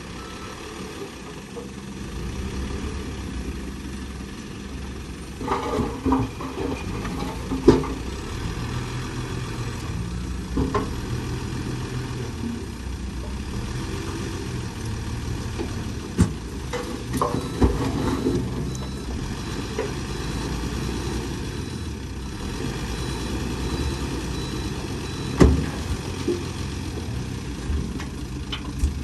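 Diesel engines of heavy earthmoving machines running steadily, with a sharp knock several times, the loudest about eight seconds in.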